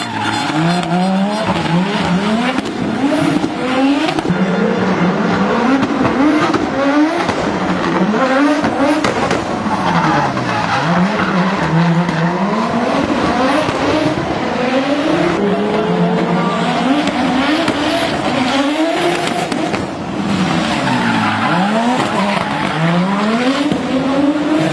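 Audi Sport Quattro S1 rally car's turbocharged five-cylinder engine revving hard over and over. Its pitch climbs steeply and drops sharply at each lift-off or gear change, with tyre squeal as the car slides through a tight turn.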